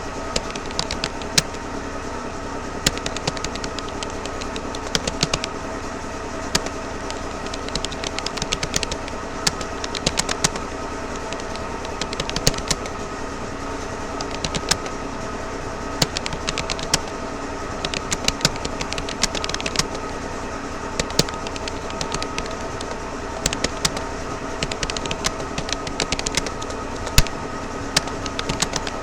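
Continuous touch typing on a Rapoo computer keyboard: quick, irregular key clicks with the occasional louder keystroke, over a steady background hum.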